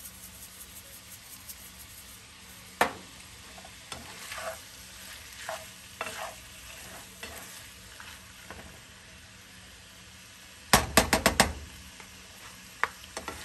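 Ground pork frying in a nonstick pan with a faint, steady sizzle while a spatula stirs it. There is a single sharp click about three seconds in, and near the end a quick run of about five loud clacks.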